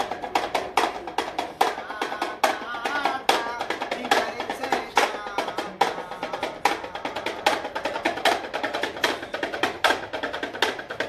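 Damru, a small two-headed rattle drum, shaken in quick runs of sharp clacking beats.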